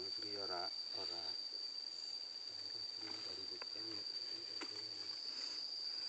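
Insects keeping up one steady, unbroken high-pitched tone, with faint voices murmuring about a second in and again a few seconds later.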